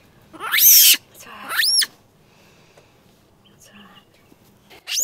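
Injured young vervet monkey screaming in distress. Two high-pitched screams come in quick succession, each sweeping sharply up in pitch and then falling, and another scream starts near the end.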